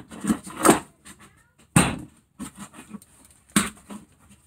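A few sharp knocks and clunks of hand-handling at a workbench vice, about a second or two apart, with quieter scuffing between them: a brake disc in its plastic bag and a piece of timber being moved about.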